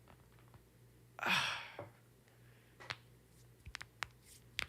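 A person sighs out one long breath about a second in, followed by a few faint, sharp clicks.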